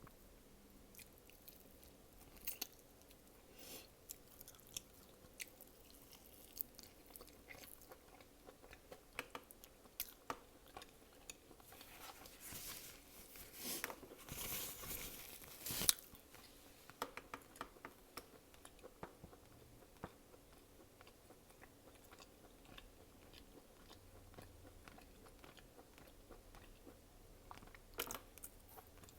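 A person eating close to the microphone: chewing and crunching, with many small wet mouth clicks. A louder stretch of crunching comes about twelve seconds in and lasts a few seconds.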